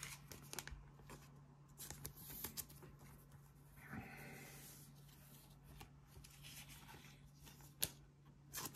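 Faint rustling and light clicks of Pokémon trading cards being gathered, shuffled and set down by hand, with a few brief crinkles of a pack wrapper.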